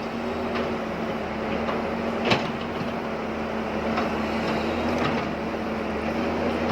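Excavator digging a basement: its diesel engine runs steadily, with a few sharp knocks, the loudest about two seconds in.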